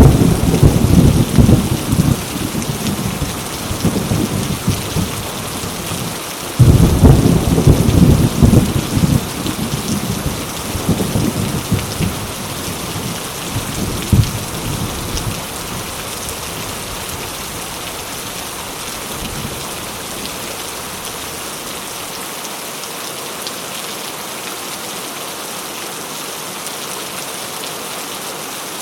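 Heavy rain pouring steadily, with two rolls of thunder. One is already rumbling at the start and fades over several seconds. A second breaks suddenly about six and a half seconds in and rumbles away until about fifteen seconds, after which only the rain is left.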